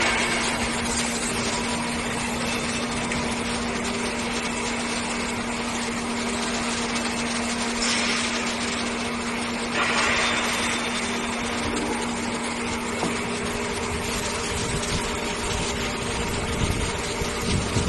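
MH410NC2 surface grinder running, with a steady machine hum and an even mechanical hiss. Brief louder, hissier stretches come about eight and ten seconds in.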